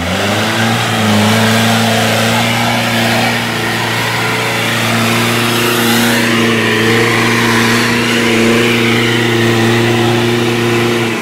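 Off-road jeep engine revved up sharply at the start, then held at high, steady revs as the vehicle churns through mud and water, with muddy water splashing.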